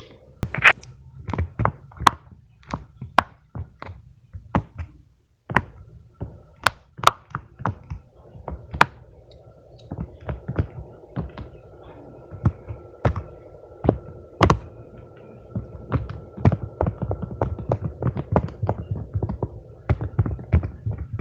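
Fidget toys being handled: irregular sharp clicks, taps and thunks, several a second, with a short pause about five seconds in.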